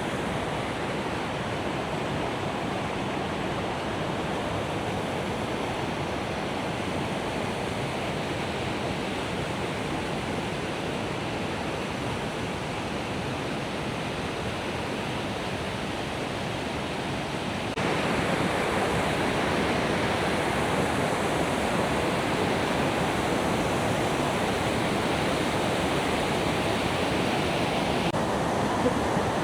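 Mountain river cascades pouring over rocks: a steady, loud rush of falling water. It gets louder about two-thirds of the way through.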